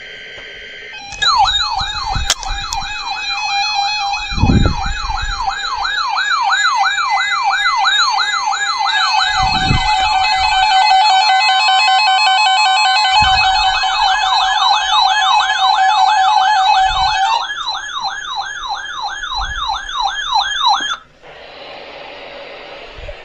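Electronic siren sounding a fast yelp, its pitch sweeping up and dropping back over and over. A second siren tone overlaps it through the middle. It cuts off sharply near the end, leaving a steady radio-like hiss.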